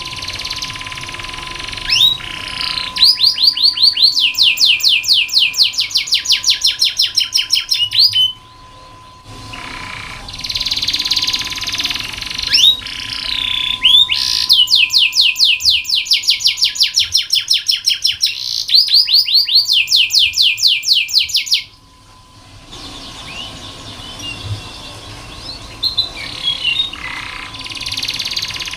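Domestic canary singing: long rolling trills of quickly repeated high notes, about five a second, in two long runs that each cut off abruptly, with softer chirps and warbling between them.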